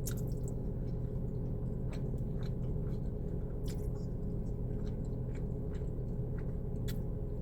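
Close-miked chewing of a mouthful of spaghetti: scattered short, soft mouth clicks over a steady low hum.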